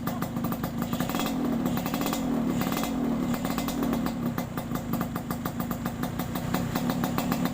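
Yamaha RX King's stock 135 cc two-stroke single-cylinder engine running through a Kupang-style under-slung exhaust, giving a rapid, even crackle at low revs. The pitch rises and falls gently a couple of times about a second or two in, as the throttle is eased open and shut.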